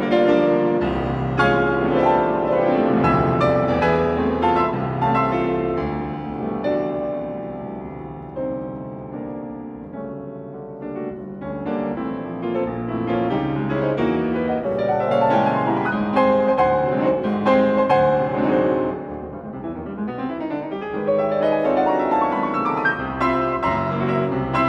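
Solo classical piano played on a Steinway & Sons grand: dense, loud passagework that eases into a quieter stretch about a third of the way through, then builds back up to full volume.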